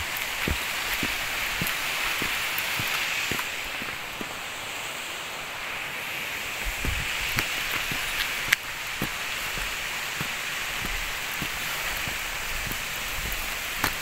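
Footsteps on a path at roughly two steps a second, over a steady rushing hiss of water, with one sharp click about eight and a half seconds in.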